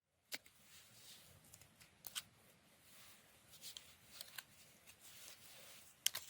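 Faint rustling with scattered sharp clicks, the loudest two coming close together near the end.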